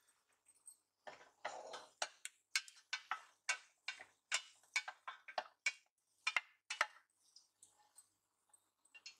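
Wooden spoon knocking and scraping against the side of a stainless steel pot while stirring cashews and raisins frying in ghee: a quick run of sharp knocks, about two or three a second, that stops about two seconds before the end.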